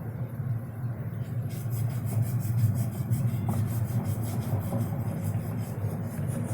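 Rhythmic rasping, like wood being sawn or sanded, begins about a second and a half in and goes on in quick, regular strokes over a steady low rumble.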